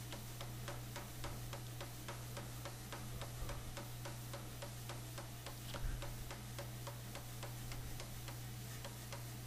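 Air hammer striking a red-hot steel bar in a fast, even rhythm of about four blows a second, heard faintly over a low steady hum.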